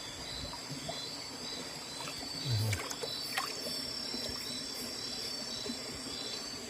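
Night insects, crickets among them, chirping in a steady pulsing chorus, with a short dull thump about two and a half seconds in and a few faint clicks.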